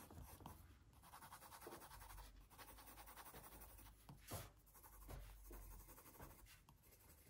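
Faint scratching of a pen and a coloured pencil drawing on paper, with one sharper stroke about four seconds in.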